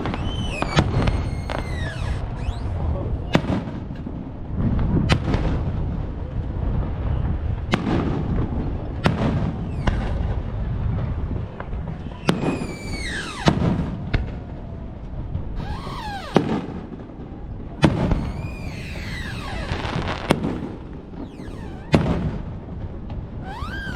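Fireworks display: shells bursting in a quick series of sharp bangs over a continuous low rumble, with whistling tones gliding up and down in pitch between the bursts.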